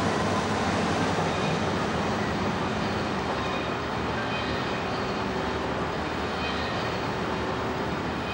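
Heavy vehicle engines running steadily: a constant rumble and hiss that eases a little after a couple of seconds.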